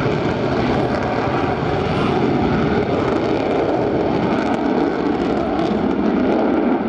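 Vickers VC-10's four rear-mounted Rolls-Royce Conway jet engines running as the aircraft moves on the runway: a steady, loud engine noise with a faint steady whine.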